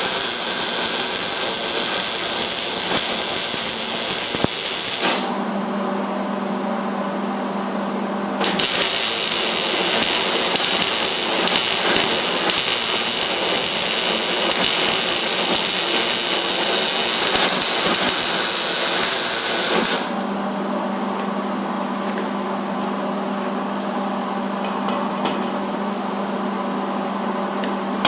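Welding arc crackling and hissing on steel roll cage tubing while a butt joint is welded, in two runs: one of about five seconds, then after a short pause one of about eleven seconds. A steady low hum fills the gaps between the runs and after them.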